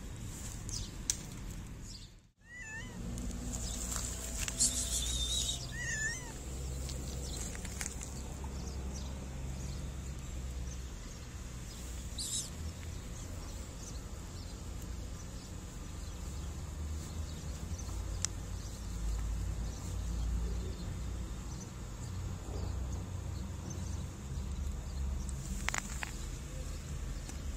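Cat meowing a few times in short calls, around the third and sixth seconds, over a steady low outdoor hum.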